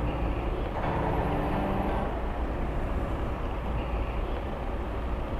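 Steady low rumble of a motorcycle engine mixed with city street traffic noise.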